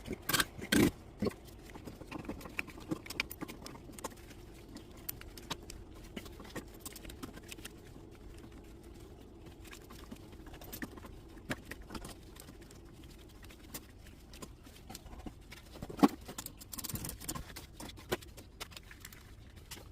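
Light clicks, taps and occasional knocks of tools and metal parts being handled while an oil burner's strainer and pump filter are opened. There are a few louder knocks about a second in and near the end, over a faint steady hum.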